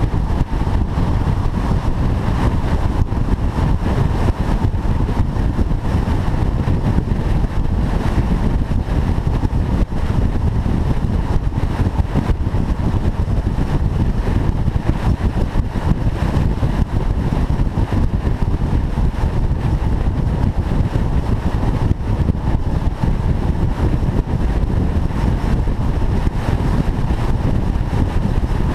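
A car driving at a steady speed: a continuous, even mix of engine, road and wind noise, with no revving or gear changes.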